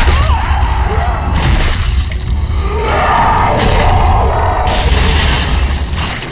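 Film battle sound effects of giants fighting: several heavy crashes and smashing impacts, about one every second or two, over a deep continuous rumble, with orchestral music underneath.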